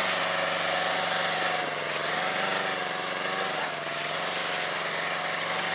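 Buran snowmobile's two-stroke engine running steadily as it tows a loaded sled through deep snow, its pitch wavering slightly.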